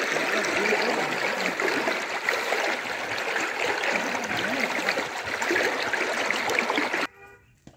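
Steady rush of running water. It cuts off suddenly near the end.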